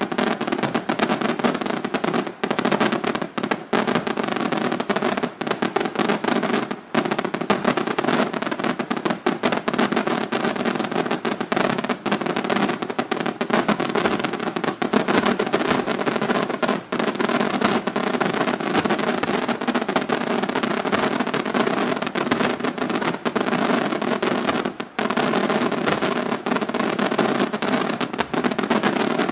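Aerial firework shells bursting in a dense, near-continuous barrage of overlapping bangs and reports, broken by only a few brief lulls.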